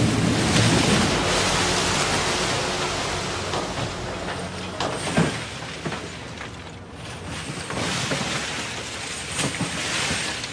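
Oyster dredge at work: a steady rushing, rumbling noise with a few sharp knocks about halfway through and again near the end, slowly fading.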